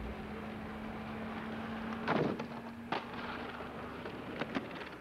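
Skateboard wheels rolling on asphalt, a steady noisy rolling sound with a low hum under it. A louder burst comes a little after two seconds, and sharp knocks come near three and four and a half seconds.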